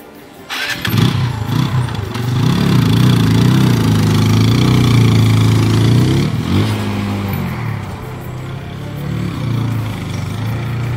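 Motorcycle engine starting about half a second in and revving with rising and falling pitch. About six and a half seconds in it eases off, running more quietly as the bike rides away.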